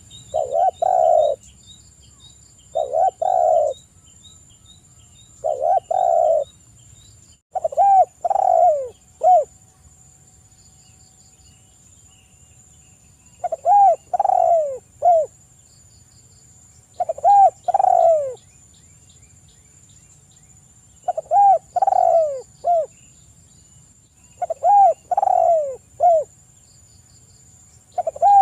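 Spotted dove (tekukur) cooing: repeated phrases every few seconds, most of them three coos that each fall in pitch, the calling style keepers call 'kuk 3'. A steady high insect drone and small bird chirps sound underneath.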